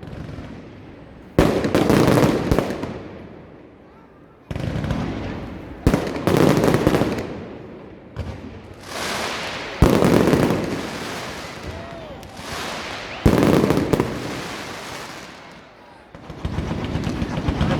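Aerial fireworks bursting: about six loud bangs a few seconds apart, each followed by crackling and fizzing that fades over a second or two.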